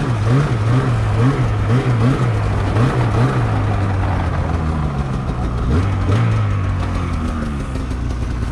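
Polaris Switchback Assault snowmobile's two-stroke engine running at low revs while the sled creeps forward. Its pitch wobbles up and down with small throttle blips for the first few seconds, then settles toward a steady idle, with one brief rise near the middle.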